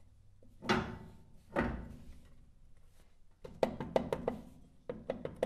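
Socket ratchet working the nuts onto the grease-baffle bolts of a Ford Model A front brake backing plate: two metal clanks in the first two seconds, then quick runs of ratchet clicking from about halfway through.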